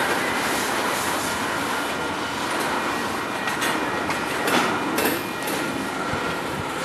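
Union Pacific freight cars rolling along the track during a switching move, steel wheels clacking over the rail joints in a steady rolling din, with a few sharper clanks about four to five seconds in.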